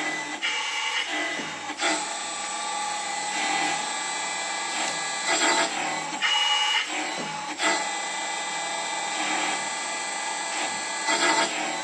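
Dough-depositing machine running: a steady motor whine with a louder mechanical pulse about every two seconds as it deposits each row of cookie dough.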